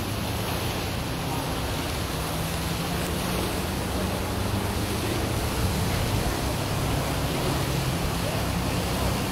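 Steady rushing outdoor background noise with a faint low hum underneath and no distinct events.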